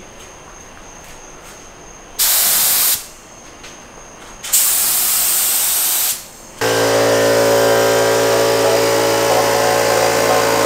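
Air-powered gravity-feed spray gun hissing as it sprays paint, in two bursts: about a second, then about a second and a half after a short pause. From about two-thirds of the way in, background music takes over.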